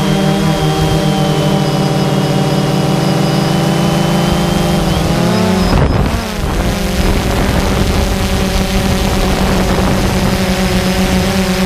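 A drone's electric motors and propellers humming steadily, heard from the camera on board, with a hiss of rushing air. About halfway through, the motor pitch slides and wavers for a moment as the drone turns, then settles into a new steady hum.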